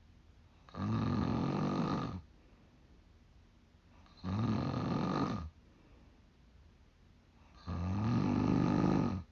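A 45-year-old woman snoring: three snores about three and a half seconds apart, each lasting over a second, with quiet in between.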